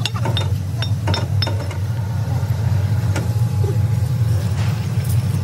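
A steel hammer strikes a freshly cast piston blank several quick times, each blow with a short metallic ring, then stops about a second and a half in. A steady low machinery drone runs underneath and is the loudest sound.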